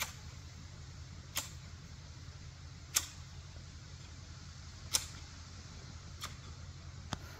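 Large garden shears snapping shut, six sharp clicks spaced about one and a half to two seconds apart, over a steady low rumble.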